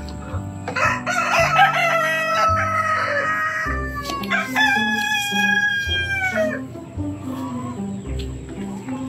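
A rooster crowing twice, each crow long and drawn out with its pitch sinking at the end; the second begins about four and a half seconds in. Background music with light rhythmic notes plays underneath.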